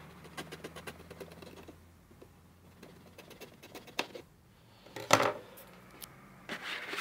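A knife slitting the tape seal on a cardboard power-supply box, a quick run of small clicks over the first two seconds. About five seconds in and again near the end come louder cardboard scrapes and rustles as the box is worked open.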